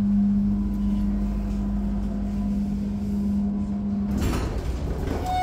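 Newark AirTrain car: a steady low hum that cuts off suddenly about four seconds in, followed by a rush of noise.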